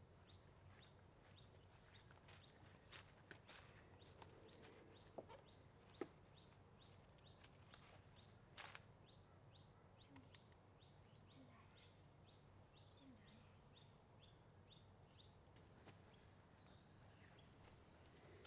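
Near silence with a faint, short high chirp repeating evenly a little over twice a second, and a couple of soft taps around five and six seconds in.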